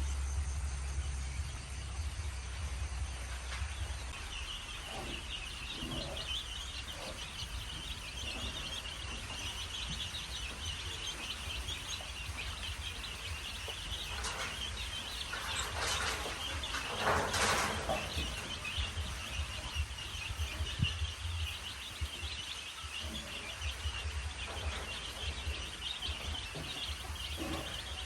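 A brood of chicks peeping continuously in many short high chirps over a low steady rumble, with a brief louder noise a little past halfway.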